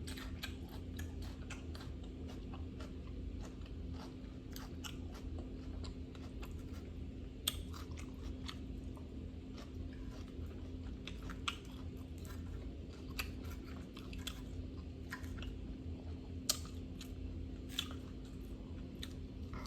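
Close-miked chewing of grilled salmon and salad vegetables: irregular wet mouth clicks and crunches, a few louder bites standing out, over a steady low hum.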